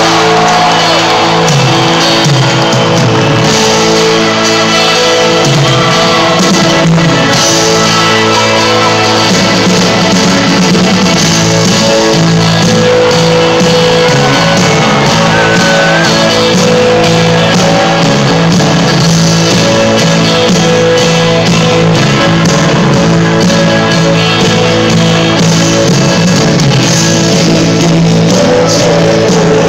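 A live band playing loud amplified music in an arena, heard from the audience.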